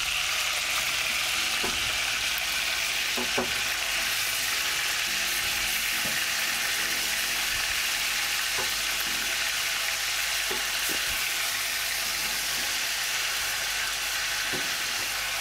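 Chicken thighs and drumsticks sizzling steadily as they brown in hot olive oil in a frying pan. A few brief light knocks and scrapes come from the tongs as the pieces are turned over.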